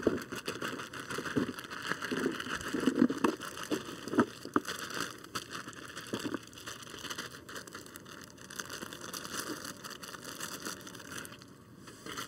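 Baby carrots poured from a plastic bag into a foil pan of potatoes: many small irregular knocks as they tumble in, with the plastic bag crinkling. It quietens near the end.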